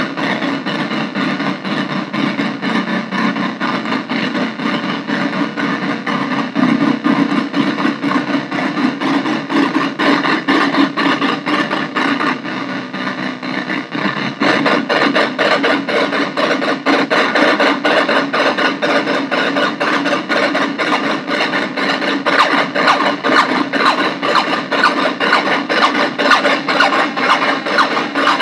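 Harsh synthesizer noise from an Arturia MicroBrute cross-patched with a Casper Electronics Nova Drone, played through a bass practice amp: a dense, fast-pulsing drone that turns brighter about halfway through.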